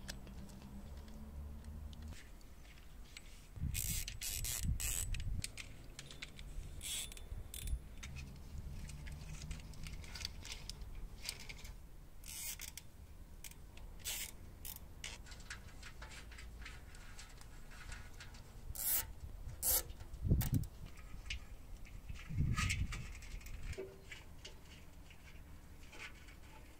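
Hand assembly work on a motorcycle: scattered clicks, light metal clinks and scrapes from parts and hand tools, with a few heavier knocks, one cluster about four seconds in and two more near twenty seconds.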